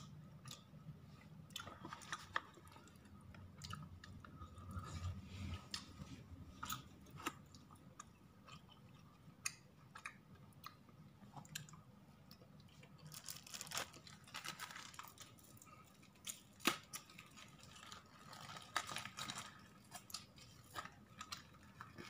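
Faint close-up eating sounds: chewing, with scattered small clicks and, twice, a rustling of the paper-and-plastic food wrapping.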